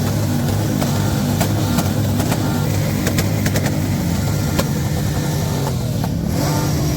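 Motorcycle engine running steadily at idle, a low even drone with scattered sharp clicks over it.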